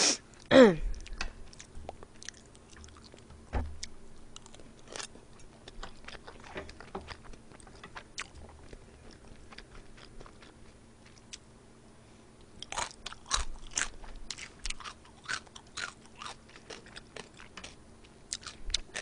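Close-miked eating: chewing with small clicks of utensils and food, and a run of crisp crunches about two-thirds of the way through as pickled yellow radish is chewed. A brief loud sound falling in pitch comes just after the start.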